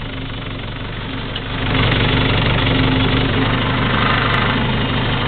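John Deere 2550 tractor's diesel engine running steadily, growing louder about a second and a half in and then holding at the higher level.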